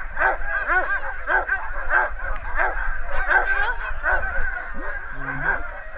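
Several sled dogs barking and yipping together in a steady din of short high barks, about two a second, overlapping one another: the excited clamour of a dog team eager to go before the sled leaves.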